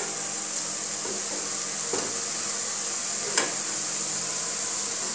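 Cooked taro leaves and taro sizzling in a frying pan with a steady hiss, while a spatula stirs the mix and scrapes the pan a couple of times.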